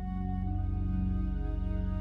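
Background music: slow ambient music made of sustained, held chords, changing chord about half a second in and again near the end.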